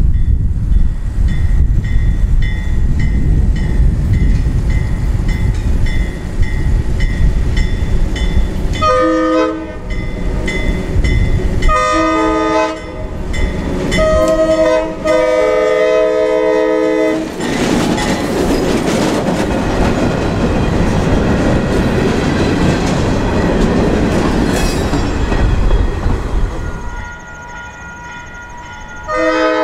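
Alco RS11 diesel locomotive approaching and passing at close range. Over a steadily ringing bell, its multi-chime horn sounds the grade-crossing signal about nine seconds in: long, long, short, long. The engine and the loaded freight cars then run loudly past. After a sudden drop in level, another horn blast begins near the end.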